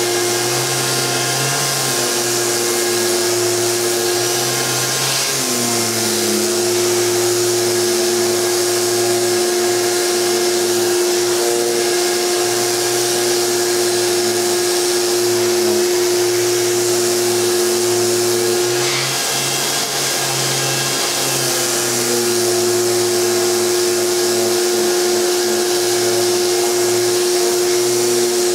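Festool electric orbital sander running steadily against a plaster wall, sanding dried joint finisher with 220-grit paper, with the dust extractor drawing through its hose. The machine's tone dips briefly twice as the sander is moved and pressed.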